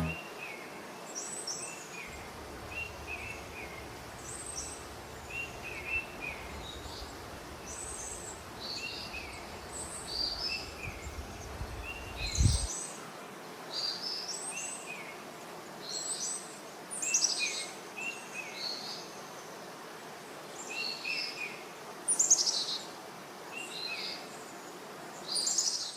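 Small birds chirping, short high calls repeating every second or two. A faint low rumble runs underneath for the first half and cuts off abruptly about halfway through.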